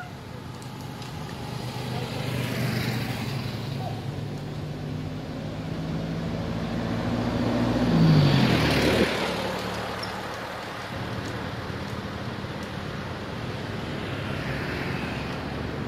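A motor vehicle driving past, its engine growing louder to a peak about eight seconds in, where the pitch drops as it goes by, with fainter passing traffic before and after.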